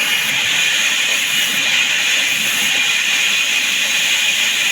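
Power saw running steadily: an even, loud hiss with a constant high whine.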